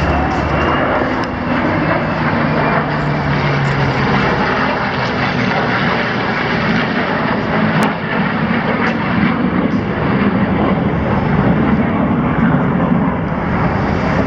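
Loud, continuous roar of an airplane's engines as a display aircraft flies over.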